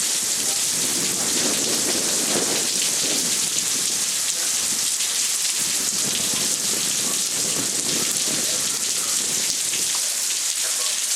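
Heavy rain pouring steadily in a thunderstorm, with low rumbles of thunder rolling through twice.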